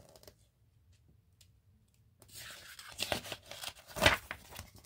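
A page of a picture book being turned: paper rustling and swishing, with a sharp papery snap about four seconds in as the page comes over.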